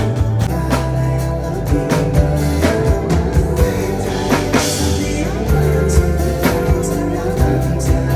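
Background music: a pop-rock song with drum kit, bass and guitar, its drum hits keeping a steady beat.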